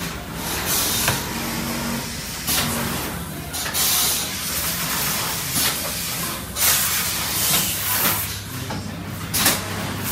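Automated multi-layer fabric overlocking and cross-sewing machinery running: a low steady hum broken by irregular short bursts of hissing every second or two.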